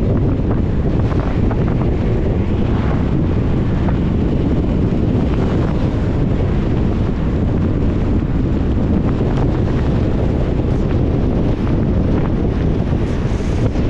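A car driving on a wet road in the rain: a steady low rumble of tyre and road noise, with wind on the microphone.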